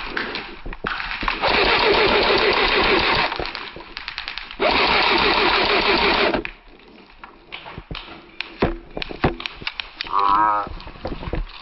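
Airsoft electric rifle firing two long full-auto bursts of about two seconds each, the second starting about a second and a half after the first ends. Scattered single clicks and pops follow, with a brief shout near the end.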